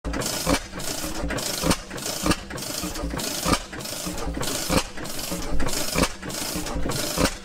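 Circa 1926 Reid Type A two-cycle oilfield gas engine with hot-tube ignition running, its exhaust firing with an even beat a little under twice a second.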